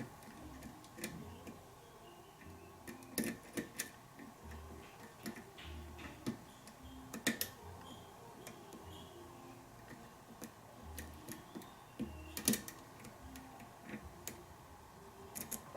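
Metal lock pick working inside a pin-tumbler lock under tension: faint, irregular small clicks and ticks as the pick is set and lifts the pins, a few sharper clicks standing out.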